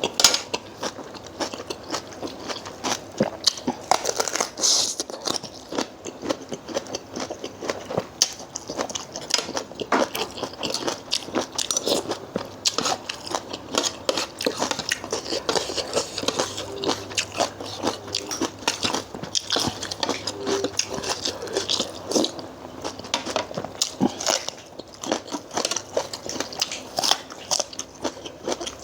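Close-up eating: a person biting and chewing crunchy food, many short crunches in quick succession, from a spicy Thai seafood salad eaten with fresh vegetables.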